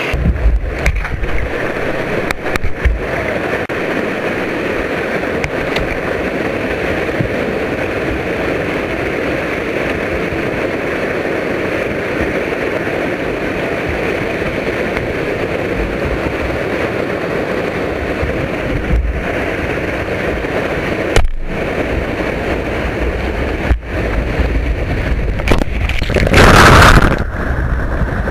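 Whitewater pouring over a river weir, a steady loud rush of water close to the microphone. About 26 seconds in, a louder surge of spray crashes right over the microphone for about a second.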